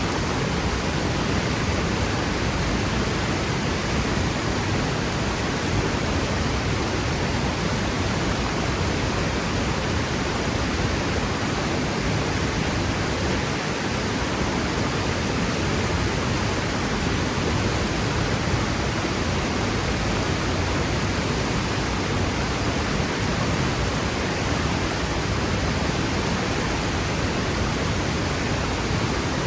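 Franklin Falls waterfall: a steady roar of rushing water that stays even throughout, with no breaks.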